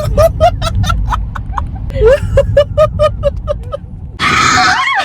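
Passengers in a speeding car laugh in rapid, even bursts, then one lets out a loud scream near the end. A steady low rumble of the car underneath runs beneath the voices.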